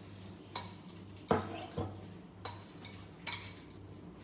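Metal fork beating thick fritter batter in a ceramic bowl, clinking against the bowl about five times, the loudest clink about a second in.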